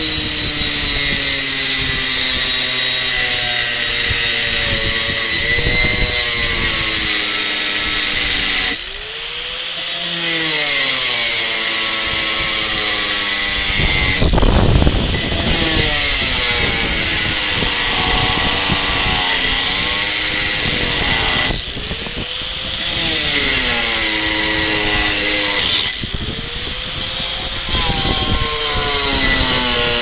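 Angle grinder with a metal-cutting disc cutting through a metal bar: a loud hiss of the disc on metal over the motor's whine, whose pitch slides down and back up as the pressure changes. The cut eases off briefly a few times.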